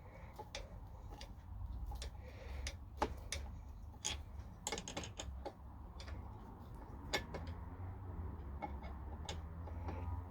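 Scattered light clicks and taps of a screwdriver and screws being worked on an aluminium vice jaw fitted to a small bench vice, at irregular times, with sharper knocks about three and seven seconds in. A low steady hum runs underneath.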